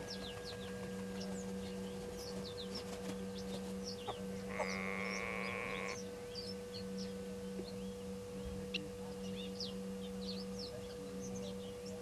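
Many short bird chirps and calls scattered throughout, over a steady low hum. About four and a half seconds in, a buzzing drone joins for about a second and a half.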